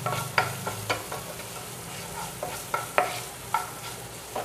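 Chopped onions frying in oil in a non-stick pan, stirred with a spatula: a steady sizzle broken by short scrapes and taps of the spatula against the pan, one or two a second.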